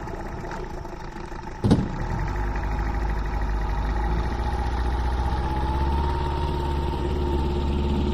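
A sharp click about two seconds in, then a toy vehicle's small motor running with a steady hum.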